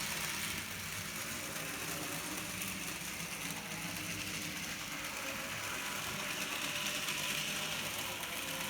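A 1980s Bachmann 2-8-0 Consolidation model steam locomotive running on its track: a steady whirr and fine rapid clatter from its small electric motor, gearing and wheels on the rails.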